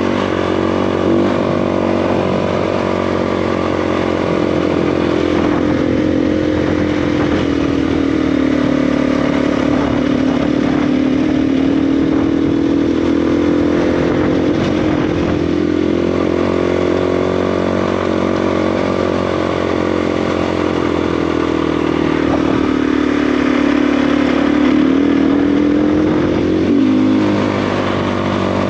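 KTM 350 EXC dirt bike's single-cylinder four-stroke engine running under way on a gravel road. Its pitch sags twice with the throttle and climbs sharply near the end, over steady tyre noise on the gravel.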